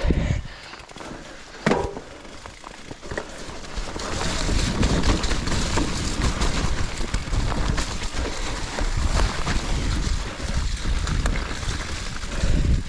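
Mountain bike riding down a rough forest trail: tyres rolling over dirt and roots, with frequent knocks and rattles and wind buffeting the microphone. It grows louder about four seconds in and stays that way.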